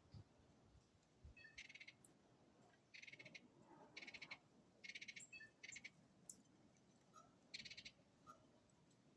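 Animal calls in woodland: a series of short, buzzy trilled calls, each well under a second and repeated every second or so, with three brief sharp high chirps, the loudest about six seconds in.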